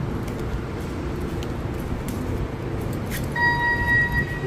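Steady low rumble of background noise. About three and a half seconds in, an electronic beep sounds once for under a second.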